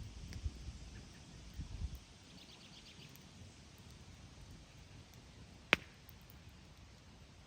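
Campfire burning quietly, with one sharp wood pop a little before six seconds in. Dull low rumbles come in the first two seconds, and a quick run of faint high ticks comes near three seconds in.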